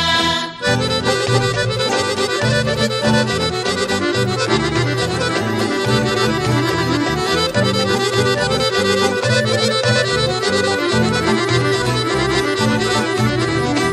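Traditional folk dance music led by an accordion over a steady bass beat; a new piece cuts in about half a second in.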